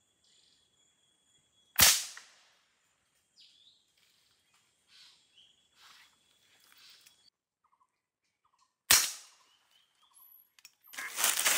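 Two sharp shots from a scoped rifle, about seven seconds apart, each a short crack that dies away quickly. Faint bird calls come between them, and a burst of rustling leaves and branches starts near the end.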